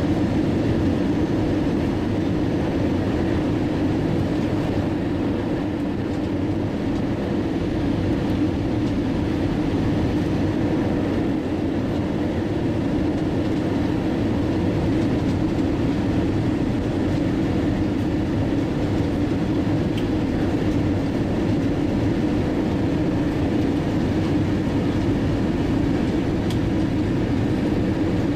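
Steady rumble inside the cabin of an Airbus A320 airliner on its descent to land, engine and airflow noise with a faint steady hum running through it.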